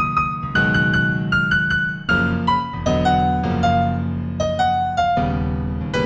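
New-age piano piece in F major: a single-note melody struck a few notes a second over sustained low chords, moving high and then stepping down.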